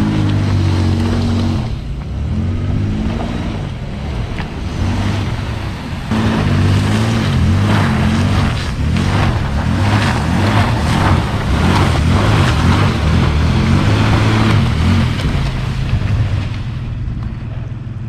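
Toyota 4Runner's engine revving up and down as it spins donuts in fresh snow, with the tyres spinning and churning through the snow. The revving and wheelspin are busiest from about six seconds in until near the end.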